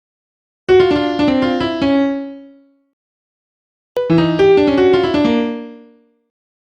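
A short piano-like keyboard jingle: a quick run of falling notes ending on a held note that dies away. It plays twice, about three seconds apart.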